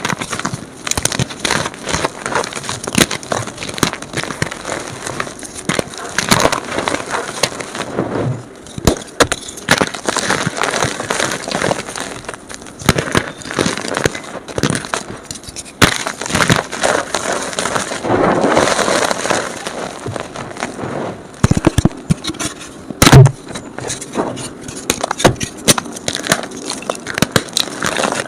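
Blocks of gym chalk being crushed and crumbled, sped up: a dense, uneven run of crunches and crackles, with one sharp, louder snap about 23 seconds in.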